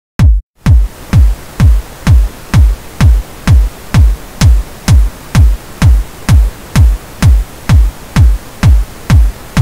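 Electronic kick drum looping about twice a second, each hit a sharp click over a low thump that falls in pitch, played against steady pink noise that comes in about half a second in. The kick's top end is being boosted further with a high-shelf EQ until it sounds too bright.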